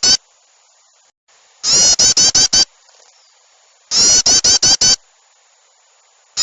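Bird-lure recording of agitated, noisy bird calls, a mix of yellow-vented bulbul (trucuk) and small birds. The calls come in loud bursts of about six quick, downward-sweeping notes, each burst lasting about a second and repeating every two seconds or so.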